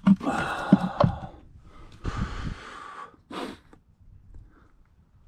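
Hands handling an ice-filled headlight pod: clicks, knocks and rustling in the first second, then a couple of short hissing sounds before it goes quiet.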